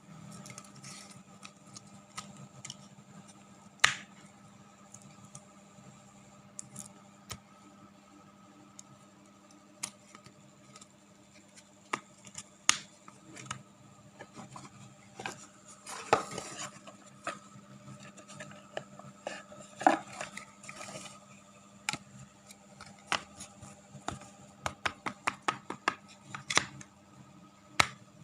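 Scattered clicks, taps and brief scraping of small hard objects being handled, with a quick run of clicks near the end, over a steady low hum.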